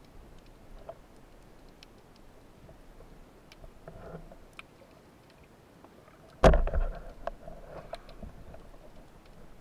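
Underwater recording: faint scattered clicks, then one loud knock about six and a half seconds in, followed by a brief rumble and a few smaller knocks, as the large sea bream held by the diver breaks away and jostles the camera.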